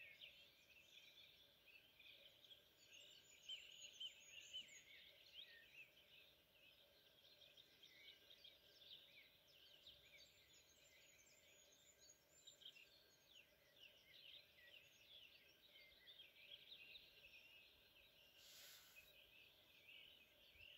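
Faint chorus of many songbirds chirping and trilling over one another from the surrounding forest, a little louder a few seconds in.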